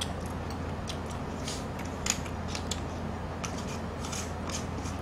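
Close-up eating sounds: scattered small clicks of metal chopsticks and a spoon against bowls, with chewing and brief slurps. A steady low hum runs underneath.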